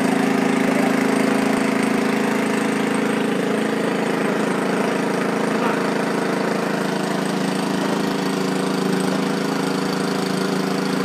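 A small engine running steadily at idle, even and unbroken.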